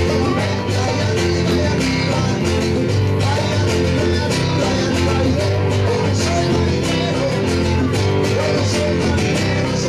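A Cuban band playing live: acoustic guitar, a pair of hand drums and keyboard over a steady bass line, with even percussion strokes throughout.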